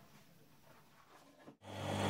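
Near silence, then about one and a half seconds in the steady hum of a metal lathe spinning a cast iron workpiece comes in and grows to a steady running level.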